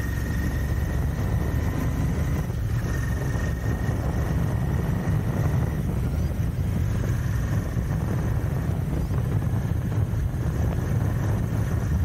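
Royal Enfield Continental GT 650's 648 cc parallel-twin engine running steadily as the motorcycle is ridden at road speed, mixed with heavy wind noise on the camera microphone.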